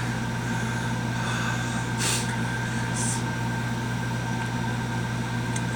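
Steady low electrical or mechanical hum with faint steady tones above it, and two short hisses about two and three seconds in.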